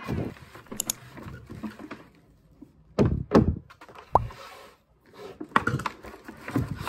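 Brown paper shopping bag rustling and crinkling as items are taken out of it by hand, with two dull thuds about three seconds in as things are set down on the table.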